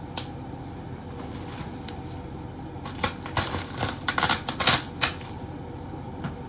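Package wrapping being handled and opened: a single click near the start, then a quick run of crinkling and crackling about halfway through.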